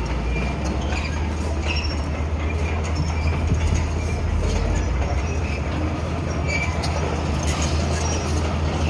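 Bulldozer's diesel engine running with a steady low drone, with scattered short squeaks and clanks from its steel crawler tracks.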